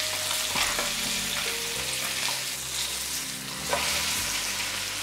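Salmon fillet sizzling steadily as it fries in butter in a pan.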